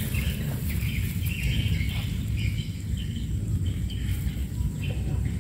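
Outdoor ambience: short, repeated high chirps over a steady low rumble.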